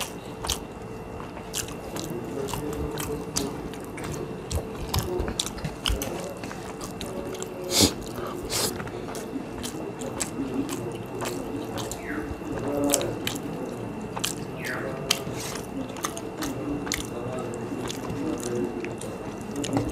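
Two people eating rice and curry with their fingers: chewing, lip smacks and the wet squish of rice being mixed by hand, heard as many small sharp clicks throughout. A faint steady hum runs underneath.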